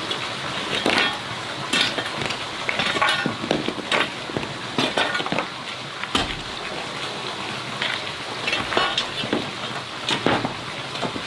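Food sizzling in a pan, with irregular scrapes and knocks of a utensil stirring it.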